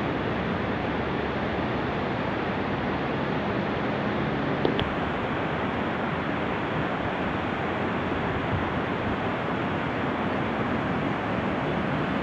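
Steady rushing of a river's rapids over a rocky bed, with one short click about four and a half seconds in.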